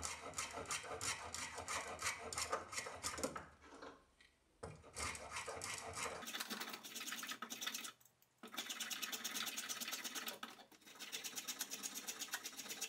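Spoke shave cutting along an oak handle: a quick run of short scraping strokes in several bursts, with brief pauses between them.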